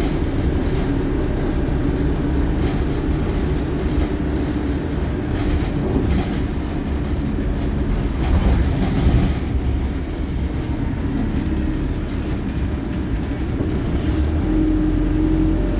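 Cabin of a Wright StreetLite Euro 6 single-deck bus on the move: a steady diesel engine and road rumble with a continuous drivetrain whine, and interior rattles. The low rumble grows heavier near the end.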